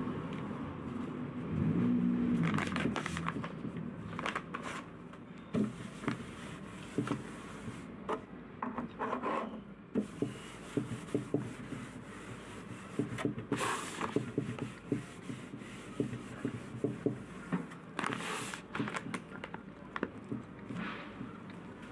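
Close handling noises: rubbing and scraping with many scattered small clicks and taps, and a couple of louder rustles.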